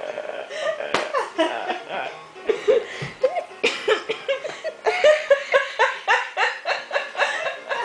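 Several adults laughing in bursts over background music. The laughter breaks into a quick, even run of ha-ha pulses from about five seconds in.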